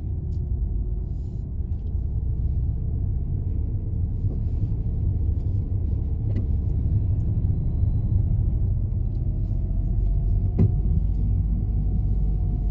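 Inside a moving car: a steady low rumble of engine and tyre noise, with a faint whine rising and falling in the last few seconds and a single sharp click about ten seconds in.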